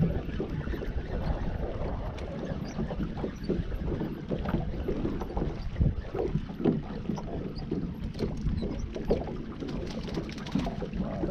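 Small water ripples lapping and slapping irregularly against the hull of a small fishing skiff, with wind rumbling on the microphone.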